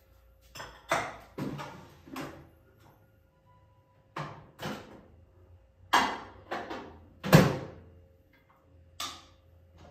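Kitchen clatter: about a dozen separate knocks and clunks of things being handled and set down at a counter, with a cupboard or door knocking shut among them, spaced irregularly with short quiet gaps; the loudest comes about seven seconds in.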